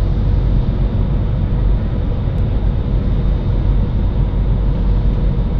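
Steady cabin noise inside an Airbus A320-214 airliner descending on approach: a deep, even rumble of its CFM56 engines and the airflow over the fuselage, with a few faint steady whining tones on top.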